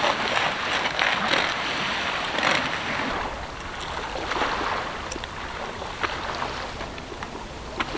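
Outdoor rush of wind and small waves lapping on the shore: an even hiss, stronger and gusting in the first three seconds, then softer, with a few faint clicks.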